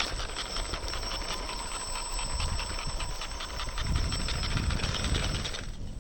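3D printed RC rock crawler driving, its electric motor and gears giving a steady high whine over rapid crackling. A low rumble joins in the second half, and the whine cuts off shortly before the end as the truck stops.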